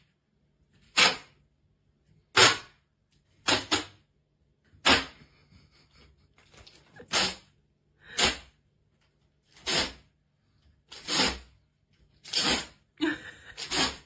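A grey shorthaired cat sneezing over and over, about ten short, sharp sneezes roughly a second or so apart.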